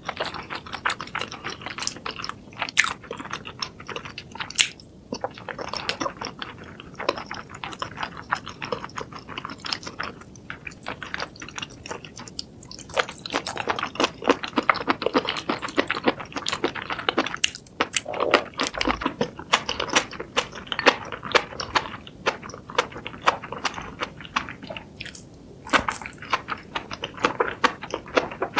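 A person chewing spicy sauce-coated food with the mouth closed, close to the microphone: dense clicking chewing sounds with a few short pauses.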